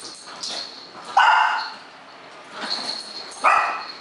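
Boston Terrier barking twice, short sharp barks about two seconds apart, at a cat-toy ball. A small bell inside the ball jingles faintly and high-pitched around the start and again near the end.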